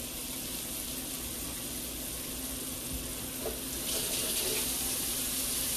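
A stick of butter melting in a hot cast iron skillet with a little beef grease, giving a steady frying sizzle that grows louder and brighter about four seconds in.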